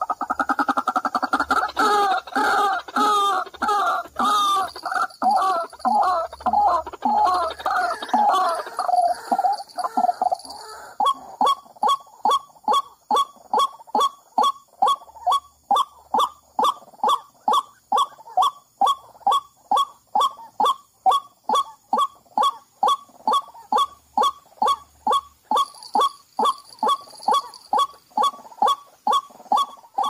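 White-breasted waterhens calling. A jumble of overlapping croaking calls for about the first ten seconds gives way to a steady run of short repeated 'kwak' notes, about two or three a second.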